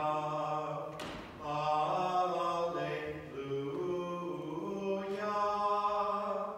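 A man chanting a Byzantine liturgical hymn unaccompanied, in long held notes that step up and down in pitch. There is a short break with a click about a second in.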